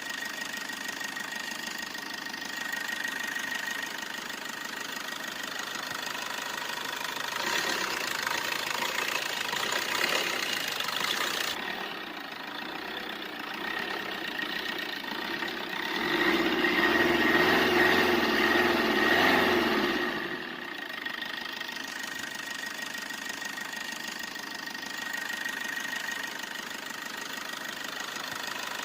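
An engine running at idle. It revs up louder for a few seconds about two-thirds of the way through, then settles back.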